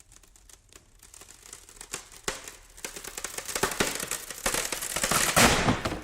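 Plywood splintering and cracking under strain: a run of sharp cracks and crackles that grows steadily louder and denser. It peaks in a loud splintering break about five seconds in, then stops.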